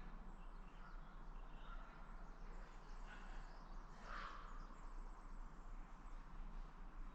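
Quiet forest ambience: a steady low background hiss with faint, scattered bird calls, one a little louder about four seconds in.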